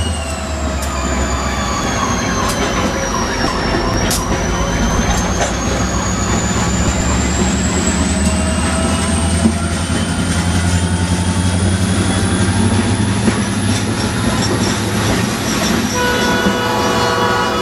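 Reading & Northern diesel freight locomotive running close by at low speed: a steady engine rumble, wheels clicking over rail joints, and a thin high whine that falls and then slowly rises. About sixteen seconds in, its multi-tone air horn starts to sound.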